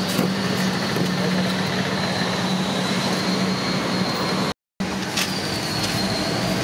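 Steady roadside street noise with traffic and a constant low hum, broken by a brief gap of silence about four and a half seconds in.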